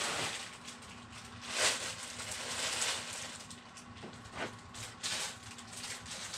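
Rustling and handling noises as things are shuffled around, with a couple of light knocks about four and five seconds in.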